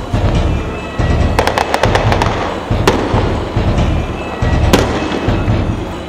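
Music with a heavy, pulsing bass beat, with a quick run of sharp cracks about a second and a half in and single sharp cracks near the middle and near the end.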